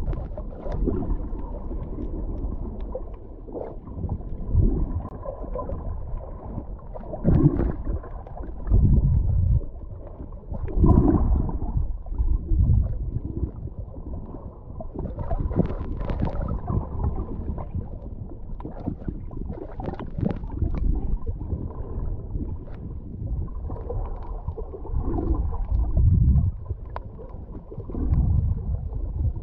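Muffled underwater water noise picked up by a GoPro HERO8's microphone while snorkeling: a low rumbling and gurgling that swells louder every few seconds.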